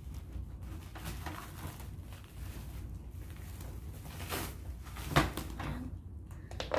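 Unpacking a cardboard box by hand: rustling and scattered light knocks of packaging and contents being moved, with one sharper knock about five seconds in.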